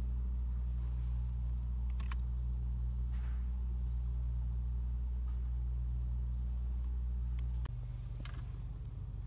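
Steady low machine hum, dropping and turning rougher near the end, with a few faint clicks.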